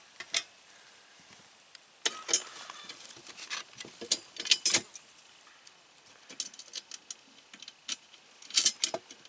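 Metal mounting bracket, bolts and nuts clinking and rattling as a solar panel is fitted by hand onto its tilting mount: scattered light metallic clicks, bunched into short rattles about two seconds in, around four and a half seconds, and near the end.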